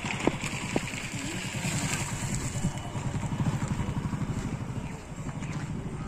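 An engine running with a rapid, even low pulse, with two sharp clicks in the first second and faint voices in the background.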